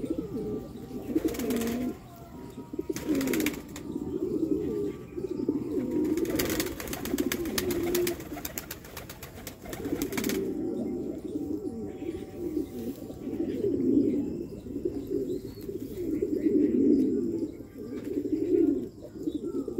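Domestic fancy pigeons cooing over and over, low rolling coos that overlap. A few sharp clattering sounds come in the first half, with a dense run of them in the middle.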